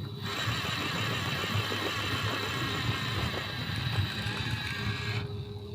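RC rock crawler's electric motor and geared drivetrain whining as it drives, starting about a quarter second in and cutting off near the end, over a low rumble.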